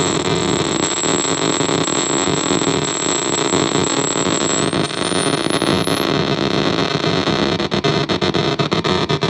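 Harsh glitchy electronic noise from a circuit-bent Korg DDD-1 drum machine patched through an effect unit: a dense buzzing wash with a thin high whine that holds steady, then glides upward about halfway through. Near the end the noise breaks into a rapid stutter.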